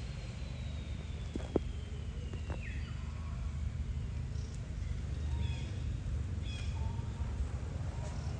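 Outdoor background with a steady low rumble. A thin whine slowly falls in pitch over the first couple of seconds, a couple of clicks come about a second and a half in, and a few faint, short high chirps follow.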